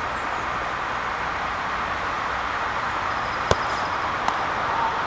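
A football is struck hard about three and a half seconds in, giving a single sharp thud, followed less than a second later by a fainter knock, over steady background noise.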